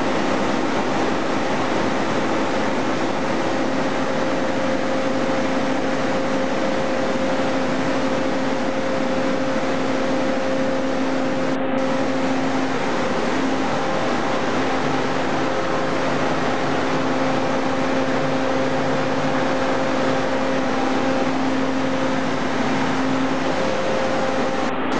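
Mitsubishi 400 kVA diesel generator set running steadily: a constant, loud mechanical din with a steady droning hum of unchanging pitch.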